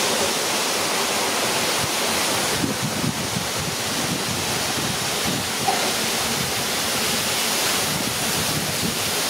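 A large batch of pakoda fritters deep-frying in a big kadai of hot oil: a steady, loud sizzle, with some crackle as the slotted spoon stirs and lifts them.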